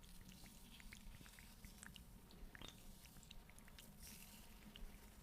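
Faint close-mic ASMR sounds: scattered small clicks and crackles, with a brief soft hiss about four seconds in.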